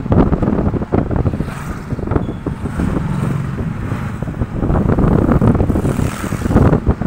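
Wind buffeting the microphone from a moving vehicle, over a steady rumble of engine and road noise.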